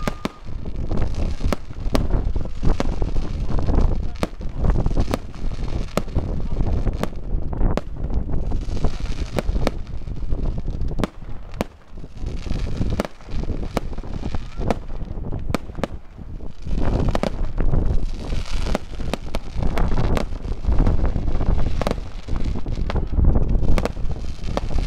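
Fireworks display: aerial shells bursting in many sharp bangs, one after another, with stretches of hissing and crackle between them.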